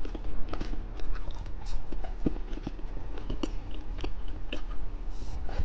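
A person biting and chewing candy, with irregular small crunches and clicks.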